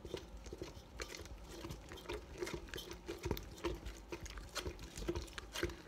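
A spatula stirring thick white glue and lotion in a metal mixing bowl. It makes soft wet squelches and scrapes against the bowl in uneven strokes, a couple to a few a second.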